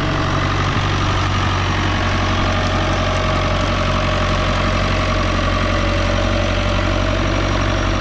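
Diesel engine of a New Holland farm tractor running steadily as it pulls a disc plough through the field.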